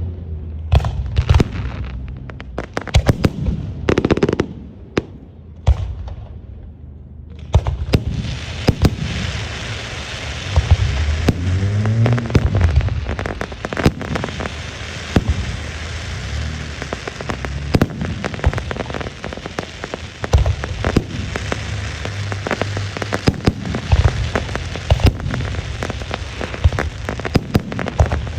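Aerial fireworks going off: a string of sharp bangs and booms, then from about a quarter of the way in a dense, continuous crackling hiss with more bangs cutting through it.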